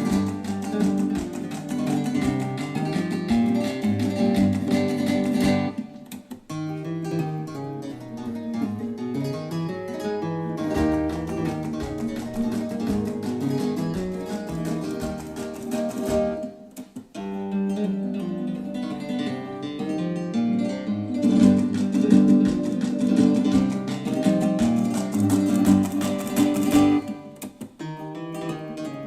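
Plucked acoustic guitar music played back through Definitive Technology BP9020 tower speakers, with the music dropping out briefly three times.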